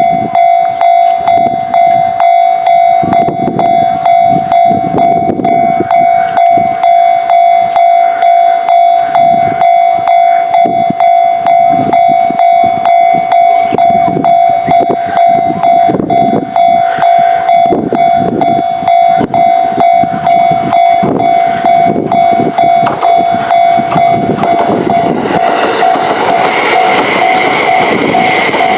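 Japanese level crossing's electronic warning bell ringing in a fast, even rhythm of repeated strokes. Near the end a train arrives and its running noise rises under the bell.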